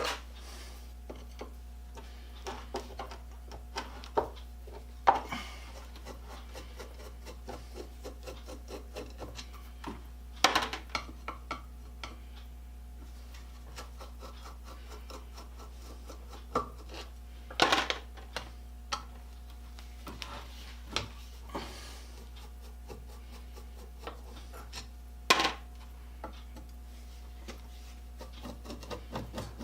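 Metal parts and tools of a Montgomery Ward hand-crank bench grinder clicking, scraping and rubbing as it is taken apart, with a few sharper clanks scattered through. A steady low hum runs underneath.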